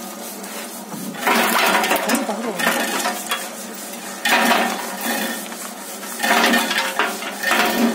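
Motor-driven groundnut stripping machine running while bunches of peanut plants are swirled in its drum: the pods rattle and clatter against the metal as they are stripped off, in three bursts, about a second in, past four seconds and from about six seconds, over the machine's steady running.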